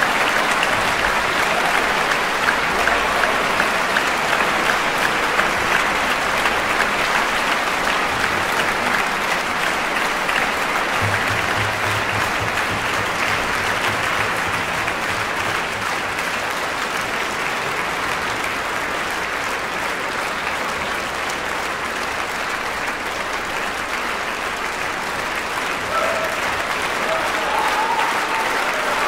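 Concert audience applauding steadily, easing off a little midway and swelling again near the end.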